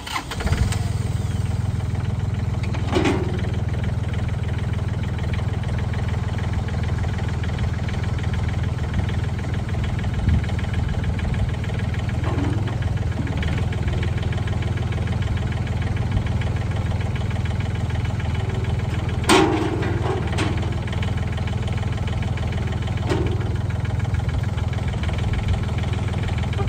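John Deere 3320 compact tractor's three-cylinder diesel engine starting and then running steadily while the front loader is raised and lowered. A few brief louder noises stand out, the loudest about two-thirds of the way through.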